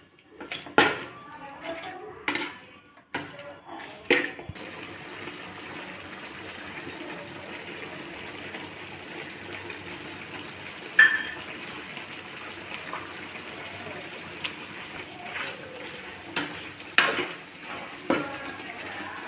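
A metal ladle clanks and scrapes against an aluminium kadai as chicken pieces are stirred, several strikes in the first few seconds and again near the end. In between, a steady frying sizzle runs with the odd clink of metal.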